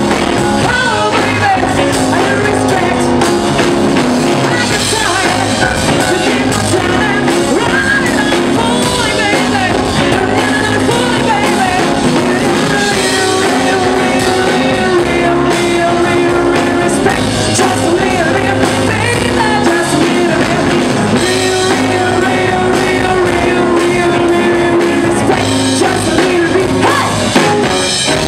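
A live rock-and-roll/soul band plays: a woman sings lead over electric guitar, keyboard, bass and drums, with a trombone in the line-up.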